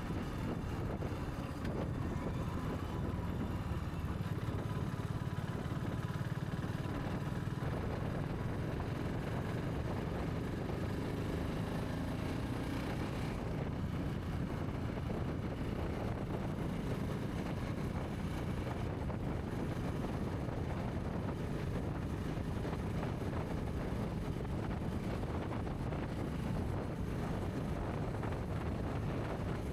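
Motorcycle engine running steadily as the bike cruises along an open road at an even speed, with no revving or gear changes.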